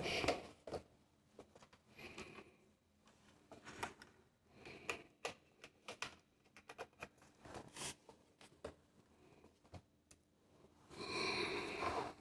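Faint handling noises of a laptop and test-lead cables on a workbench: scattered small clicks, taps and rustles with short quiet gaps, and a louder rustle near the end.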